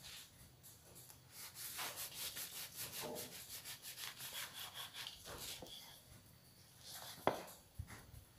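Kitchen knife sawing through a crusty Vietnamese baguette on a wooden chopping board: a fast run of rasping, scratchy strokes through the crust for several seconds, then a single sharp knock near the end.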